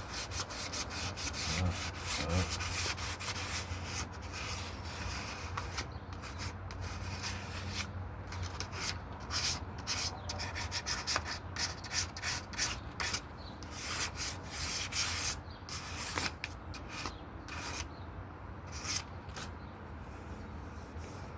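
Sandpaper rubbing over the primed wooden body of a guitar in quick, repeated strokes, a light scuff sanding that knocks down the rough bumps in the primer before the colour coat.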